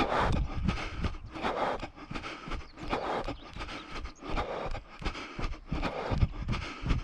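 A runner's footfalls on a grassy dirt trail, about three steps a second, picked up by a body-worn camera that jostles with each stride. Low rumble on the microphone swells at the start and again near the end.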